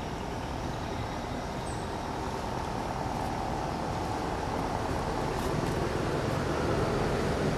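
Steady rumble of a motor vehicle, slowly getting louder.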